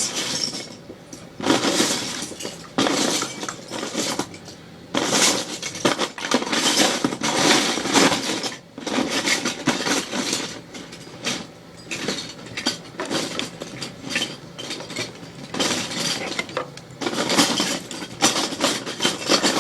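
Loose plastic Lego bricks clattering and clinking as hands rummage through a pile of pieces, in waves of rattling with short lulls between.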